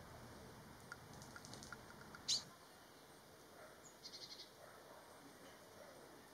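Small songbirds calling faintly: one short, sharp high call about two seconds in, then a quick run of faint high ticking notes about four seconds in.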